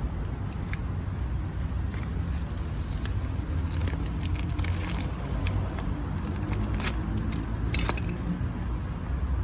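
A run of light metallic clicks and clinks from hand tools and brake parts being handled, busiest in the middle, over a steady low rumble.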